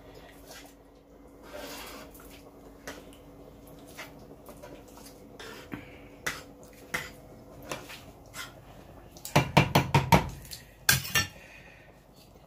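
A metal ladle stirs thick porridge in a cooking pot with light scattered clicks. About nine seconds in there is a quick run of about five loud metal clanks, then two more a second later, as the ladle knocks against the pot.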